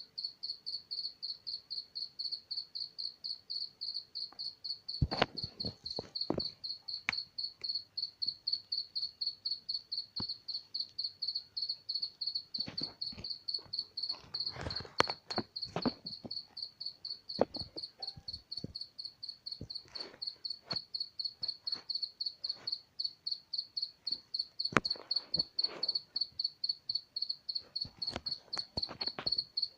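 A cricket chirping steadily in one high, even pitch, about three chirps a second, with scattered faint clicks and knocks.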